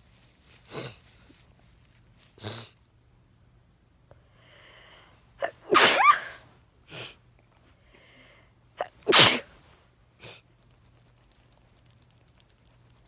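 A person sneezing from allergies: two loud sneezes about halfway through and again three seconds later, the first with a voiced, sliding 'achoo'. There are a few short, quieter sounds before and between them.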